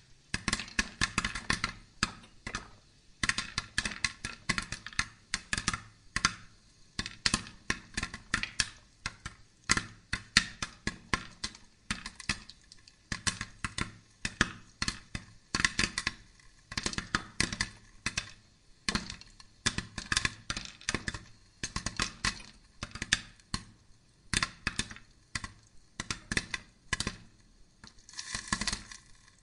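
Woven hand fan flapped rapidly to fan the charcoal of a corn-roasting brazier: a fast, uneven clatter of clicks and swishes in clusters, without a break.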